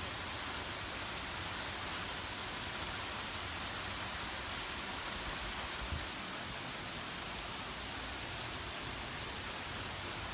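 Heavy thunderstorm rain falling steadily, with gusty wind rumbling on the microphone and a small bump about six seconds in.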